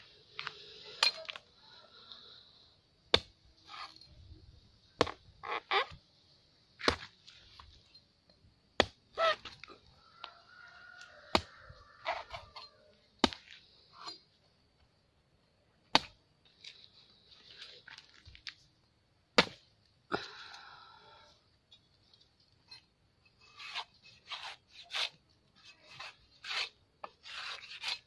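Machete chopping into a young green coconut: a series of sharp, irregularly spaced blade strikes with short scraping sounds between some of them. The strikes come closer together near the end.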